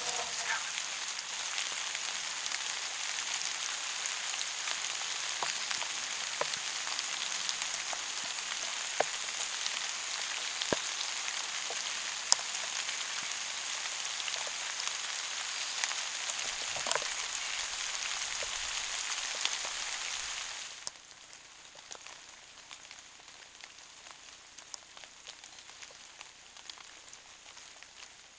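Heavy rain falling steadily, with scattered louder drips ticking close by. About 21 seconds in it drops off sharply to a much fainter patter.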